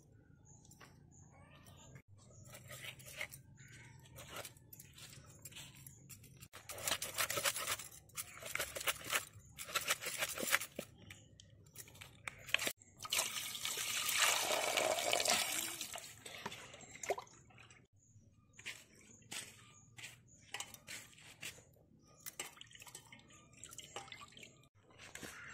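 A knife scraping and cutting a rohu fish: quick rasping strokes across the scales and skin, scales crackling, in bursts, with a longer, louder stretch of continuous scraping about halfway.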